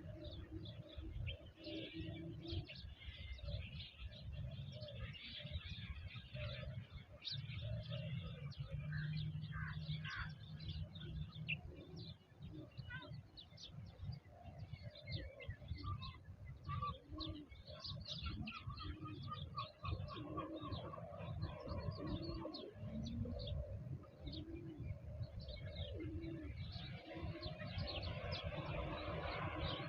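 Outdoor birdsong: many small birds chirping, with pigeons or doves cooing in repeated low notes, over a steady low rumble.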